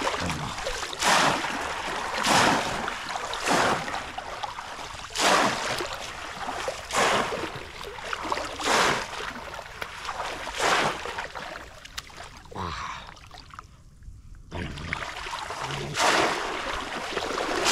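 Repeated splashing in shallow, muddy paddy water as a bamboo cone fish trap (a polo) is plunged down and a person wades and lunges through the water. There is a loud splash every second or two, with a short lull about twelve seconds in.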